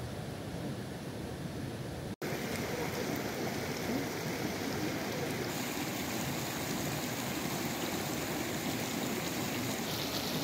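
Shallow stream running over rocks, a steady rush of water. It drops out for an instant about two seconds in and comes back a little louder.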